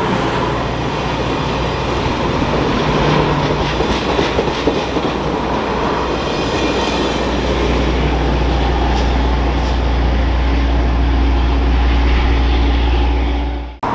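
Caltrain commuter train running past at the platform: a steady, loud rumble of the train and its wheels on the rails, with a deep hum that grows heavier about halfway through, cutting off abruptly near the end.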